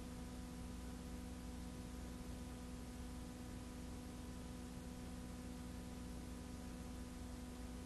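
Steady electrical hum with several fixed tones over an even hiss. This is a transfer's noise floor, with no sound from the filmed scene.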